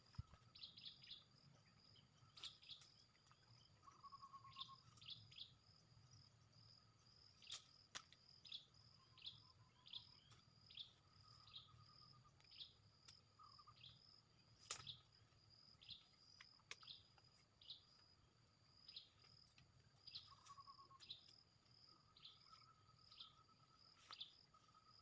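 Faint natural ambience of insects: a steady high-pitched buzz and a lower trill, with short chirps repeating about once a second and a few sharp clicks.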